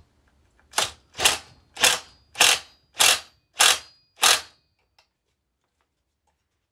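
Cordless impact wrench fired in seven short bursts about half a second apart, hammering the reverse-threaded clutch tight on a Stihl 029 chainsaw's crankshaft.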